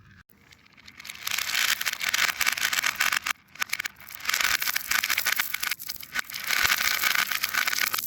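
Fidget toy worked by hand: crackly, scratchy scraping in three stretches of about two seconds each, with short breaks between.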